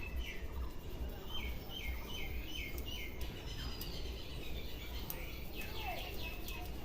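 Birds chirping: one bird repeats a short falling chirp four or five times in quick succession, and a few more calls follow near the end, over a constant low rumble.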